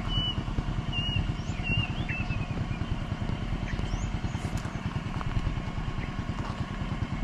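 Small engine idling steadily, a fast even low putter, with a few short high bird chirps in the first two seconds or so.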